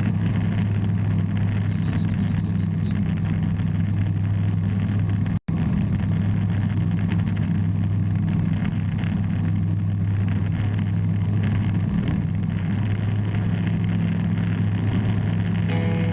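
Piston engine of a Bristell light aircraft droning steadily in flight, with a sudden momentary dropout about five seconds in.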